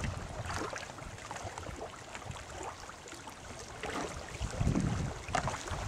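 Wind rumbling on the microphone over lapping water, with a few short splashes from the paddle and kayaks.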